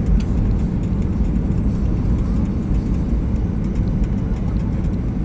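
Steady low rumble of engine and airflow noise inside the cabin of a Ryanair Boeing 737-800 descending on approach.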